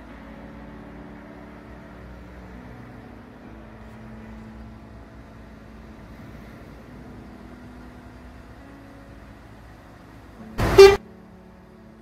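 Truck horn giving one short, very loud blast near the end, over a steady low engine hum.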